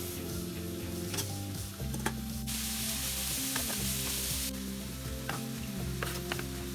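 Food sizzling in a frying pan, with light utensil clicks and a louder burst of hiss in the middle that starts and stops abruptly, over soft sustained background music.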